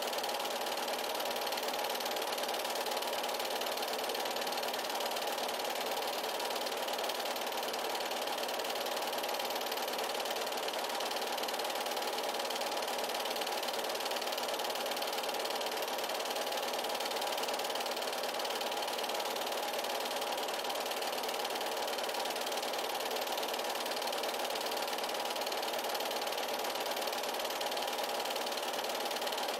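8mm film projector running with a steady mechanical whir.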